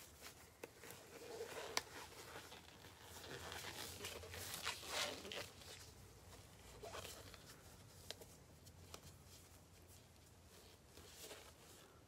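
Faint rustling and crinkling handling noises, strongest from about one to six seconds in, with a few light clicks.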